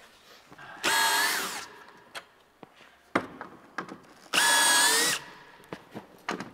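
Cordless drill driving screws to fix a large climbing hold to a plywood wall: two runs of about a second each, each rising quickly to a steady whine. Small clicks of handling come between them.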